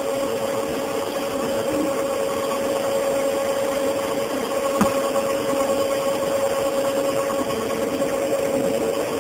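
Grape-pressing machine running with a steady mechanical hum and a held whine, and a single click about five seconds in.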